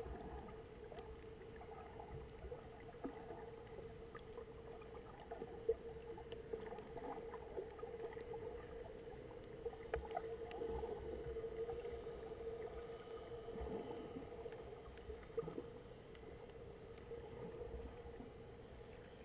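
Underwater sound picked up by a snorkeller's camera over a coral reef: a faint steady hum with a low rumble and scattered short clicks and pops.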